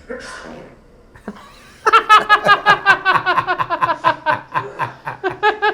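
Hearty laughter: a long run of quick, high-pitched ha-ha bursts that starts about two seconds in, after a short breathy rush of air at the start.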